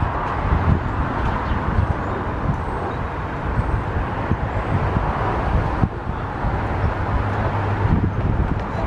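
Steady outdoor noise of road traffic with wind on the microphone.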